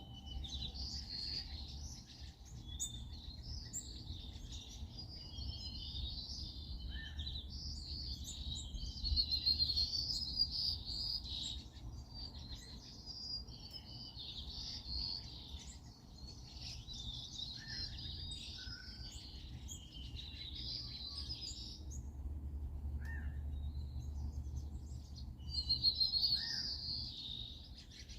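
A chorus of many small birds chirping and twittering without a break, over a low steady rumble.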